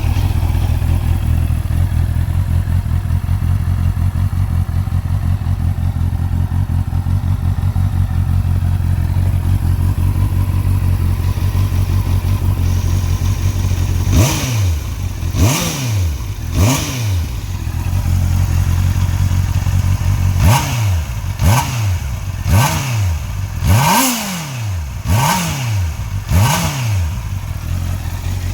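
Motorcycle with its stock exhaust idling steadily, then revved in short throttle blips: three about halfway through and six more near the end, each rising and falling quickly back to idle.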